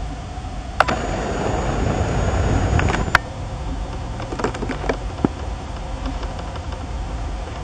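A video camera's zoom motor runs for about two seconds as the lens zooms out, with a thin steady whine that starts and stops with a click. Scattered light handling clicks follow, over a steady low rumble.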